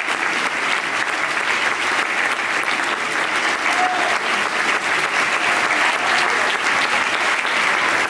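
Audience applauding: steady, dense clapping from a large seated crowd.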